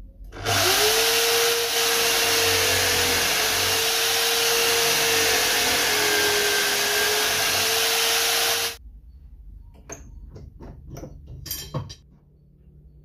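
Electric drill in a homemade horizontal drill press spinning up and running steadily as it bores into a clamped wooden board, then stopping suddenly about nine seconds in. A few clicks and knocks follow as the board is handled.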